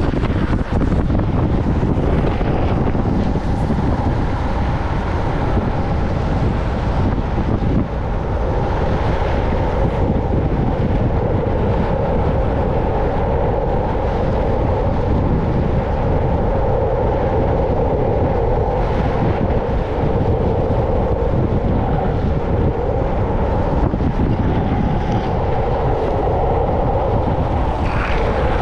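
Longboard downhill at speed: wind rumbling on the camera's microphone over the steady roll of urethane wheels on asphalt. A few brief higher hisses rise above it, the last near the end.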